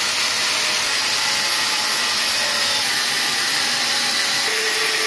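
Handheld angle grinder cutting into the thick sheet-steel shell of a water-cooler compressor, a steady loud grinding and whine throughout as the disc bites the metal. A faint lower tone joins near the end.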